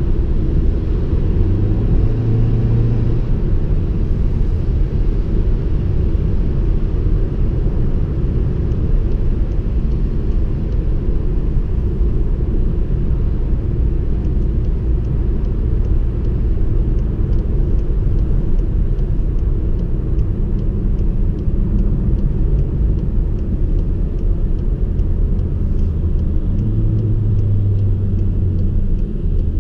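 Cabin sound of a 2016 VW Passat B8 with a tuned 2.0 TSI turbocharged four-cylinder and aftermarket intake, cruising on the road: a steady low rumble of engine and tyres. The engine note comes up louder briefly about two seconds in and again near the end.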